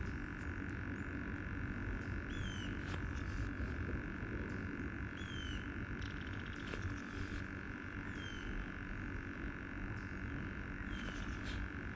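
Outdoor ambience: a steady high hum and low rumble, with a short falling chirp from an animal four times, about every three seconds.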